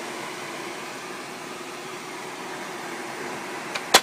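A 30-pint dehumidifier running on its high fan setting: steady fan noise with a faint low hum. A single sharp click just before the end.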